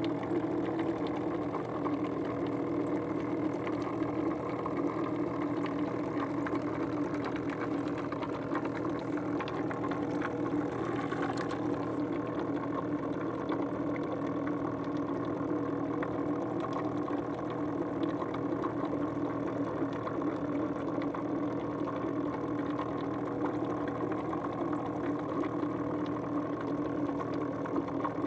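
Small boat engine idling steadily, an even, unchanging mechanical chug.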